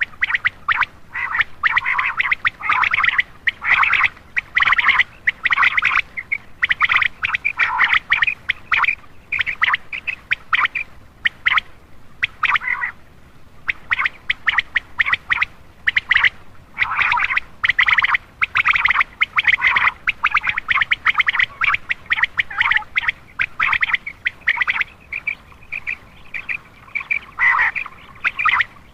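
Common quail calling: rapid short notes repeated in dense runs with brief pauses between them. This is a lure call meant to draw in male quail.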